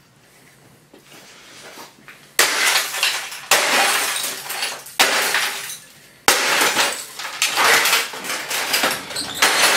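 Hammer smashing the screen and casing of a small Magnavox CRT television–clock radio: four sharp blows about a second apart, each followed by breaking and the rattle of shattered glass and plastic pieces. Irregular crunching and clatter of broken debris continues near the end.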